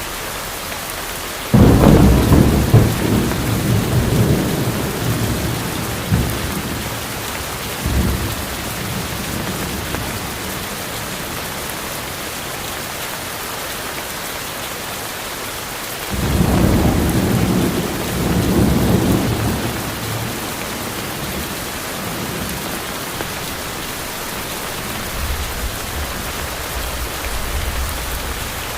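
Steady heavy rain in a tropical forest with two rolls of thunder. The first breaks in suddenly about two seconds in and rumbles on for several seconds. The second rises about sixteen seconds in and fades a few seconds later, and a faint low rumble follows near the end.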